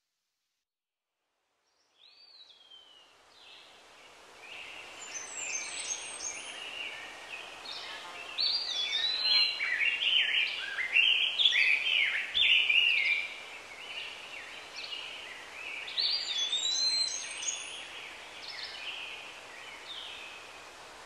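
Several songbirds chirping and singing in quick, sweeping phrases over a steady outdoor hiss. The sound fades in after about two seconds of silence.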